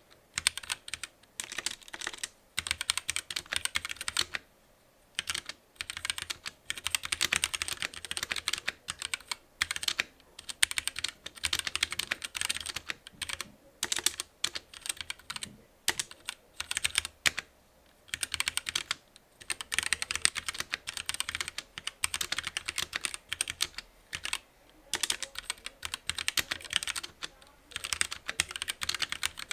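Fast typing on a GamaKay (Womier) K66 mechanical keyboard with Gateron Red linear switches in an acrylic case: dense runs of key clacks broken by short pauses. The switches are quiet, with little key rattle.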